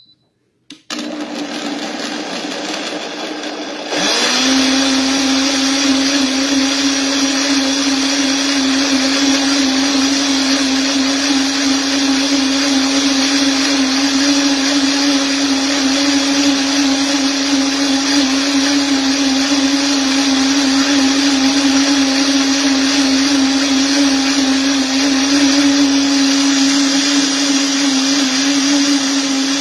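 Countertop blender blending fruit, chia seeds and coconut water into juice. The motor starts about a second in, steps up to a louder, higher speed about four seconds in, then runs steadily.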